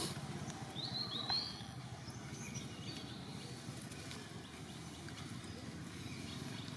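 Outdoor ambience: a steady low rumble throughout, with a brief high chirp about a second in.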